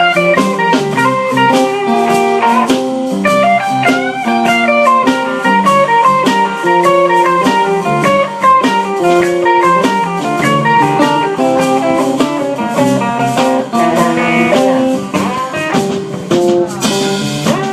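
Live blues band playing an instrumental break: an electric guitar solo of quick note runs over a steady drum beat and bass.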